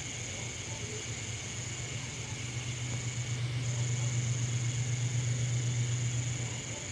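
Night insects, crickets, trilling steadily at a high pitch with a brief break about halfway through, over a low hum that grows louder in the middle and drops away near the end.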